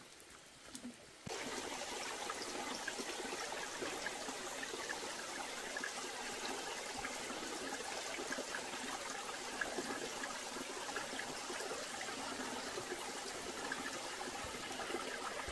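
Small stream trickling and babbling, starting abruptly about a second in.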